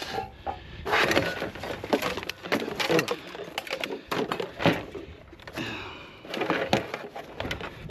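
Irregular knocks and clatter of hard household junk being shifted by hand: a painted wooden chair moved aside and a heap of cans, plastic and metal parts rummaged through. A sharper knock comes about halfway through.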